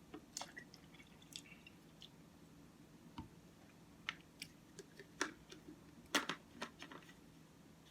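Faint mouth sounds of eating cereal-topped oatmeal close to the microphone: soft chewing with scattered wet clicks and smacks, the loudest about six seconds in.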